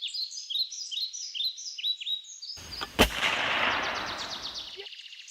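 A songbird repeats quick downward-sliding whistled notes, about two a second. About three seconds in, a single sharp crack, the shot of a suppressed FX Dreamline .25 air rifle, lands in a burst of rushing noise that fades away over the next two seconds.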